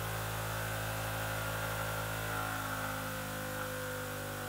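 WEN 8-inch variable-speed bench grinder running with no load, its motor and wheels giving a steady hum of several even tones. It has been turned down toward its low speed and runs pretty quiet.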